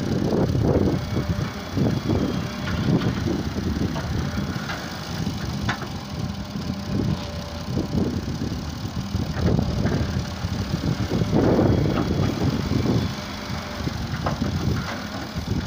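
Diesel engines of a wheeled excavator at work and a tractor idling beside it, the engine noise rising and falling as the excavator digs and swings, with a few short knocks as its bucket works the sand.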